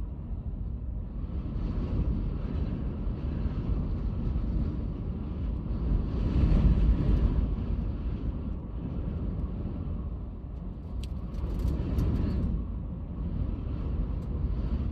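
Strong wind gusting, a low rumble that swells and eases, loudest about halfway through. A few sharp clicks come near the end.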